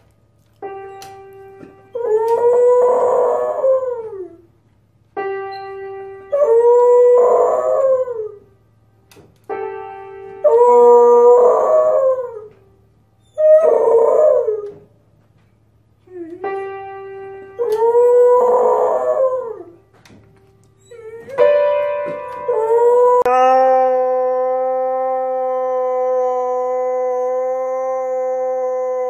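A beagle pressing a few piano keys with its front paws and then howling, over and over, about six rounds of notes and howls. Near the end a husky gives one long, steady howl.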